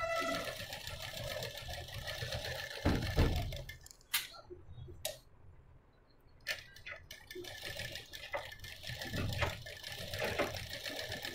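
Sewing machine stitching canvas interfacing onto cotton blouse lining along the neck facing. It runs for about four seconds, stops for about two seconds with a few clicks, then runs again.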